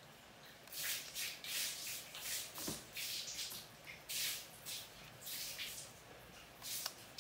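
A screwdriver scraping and turning against the metal and plastic parts of a spinning fishing reel's rotor, a string of short scratchy rubs starting about a second in.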